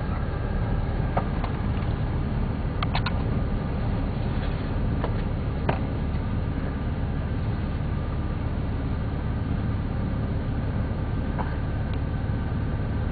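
Four-wheel drive's engine running with a steady low rumble, heard from inside the cab, with a few short clicks.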